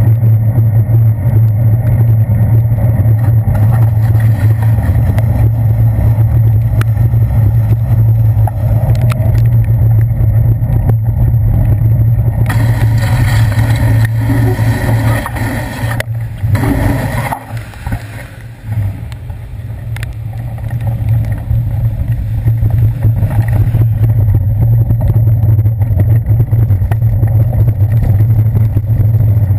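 Steady low rumble of wind and road vibration on a handlebar-mounted GoPro Hero 2 in its housing as a bicycle rides over wet pavement. About halfway through, a bus passes close by with a hiss of tyres on the wet road. The rumble then dies down for a few seconds before picking up again.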